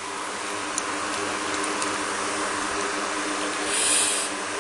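Steady background hum and hiss of a running fan, with a brief louder rush of hiss about four seconds in.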